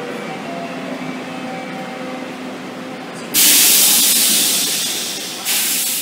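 Korail subway electric train running along a platform, with steady whining tones over its running noise. About three seconds in, a loud hiss cuts in suddenly and slowly fades, and a second hiss starts near the end.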